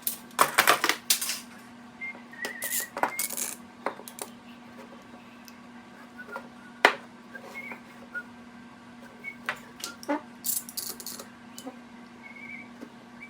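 Small metal pieces clinking and tapping against a hard surface in scattered bursts, some leaving a brief ring, over a steady low hum.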